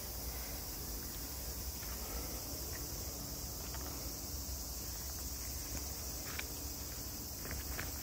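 Steady high-pitched insect chorus, such as crickets or cicadas, over a low rumble. Footsteps begin near the end.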